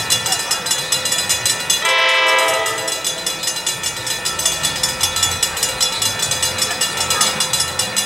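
Grade-crossing bell ringing rapidly and steadily as a train approaches. The train's air horn sounds a multi-note chord for about a second, about two seconds in, and starts another blast at the very end.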